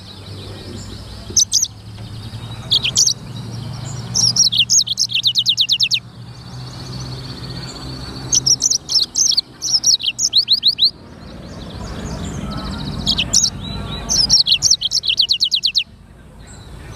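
Black-throated canary (blackthroat) singing in repeated bursts of high, fast-repeated falling notes, with short pauses between phrases. A faint low steady hum sits underneath.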